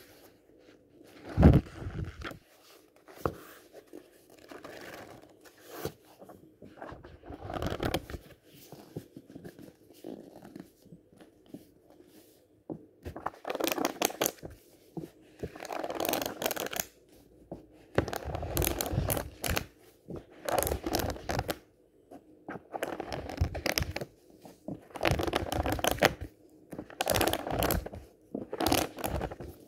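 Pages of a thick paperback book flipped quickly under the fingers: papery riffling in bursts of about a second, repeated many times and coming thicker in the second half. A sharp tap about a second and a half in.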